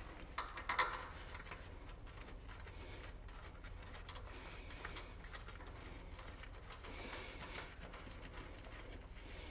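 Faint small metal clicks and handling sounds as a bolt with a washer is set into the vibration motor housing and threaded in by hand, the clearest clicks near the start. A low steady hum runs underneath.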